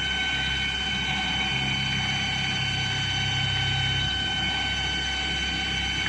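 CNC pipe drilling machine running while machining a metal pipe dry, without coolant: a steady high-pitched whine throughout, with a lower hum that comes in about a second and a half in and drops out about four seconds in.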